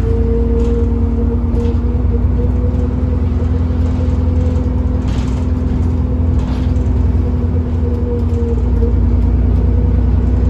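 Alexander Dennis Enviro400 double-decker bus's diesel engine and drivetrain, heard from inside the passenger saloon while the bus is moving. There is a steady low drone with a constant hum-whine over it and a few brief rattles.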